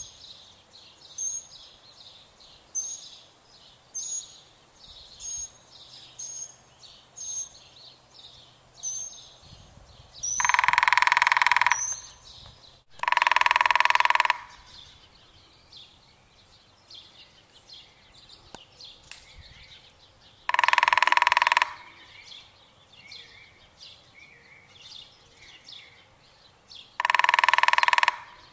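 A woodpecker drumming in four loud bursts of about a second each, spaced several seconds apart, while small birds chirp softly between them, one repeating a short high chirp about every second and a half.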